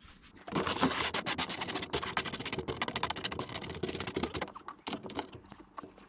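Potatoes being taken out of a cardboard box by hand: a rapid clatter of knocks and scrapes as they bump against each other and the cardboard. It thins out after about four and a half seconds.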